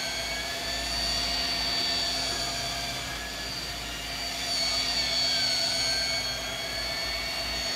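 Sportfishing boat's engines running steadily at trolling speed, a low rumble with a steady whine over the rush of the wake.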